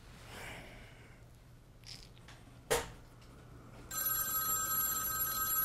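Telephone ringing: one steady electronic ring of about two and a half seconds that starts about four seconds in. A single short knock comes just before it.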